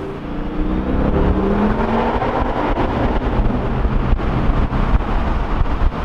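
Car engine revving up as the car accelerates hard, its pitch climbing over the first couple of seconds, then settling into a loud, rough rumble. The car is a 2015 S550 Ford Mustang.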